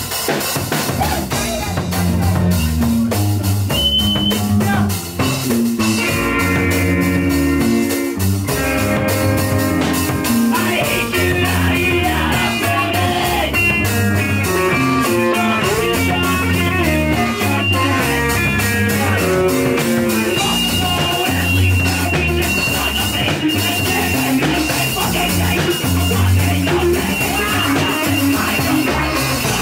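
Hardcore punk band playing live: guitar and drum kit.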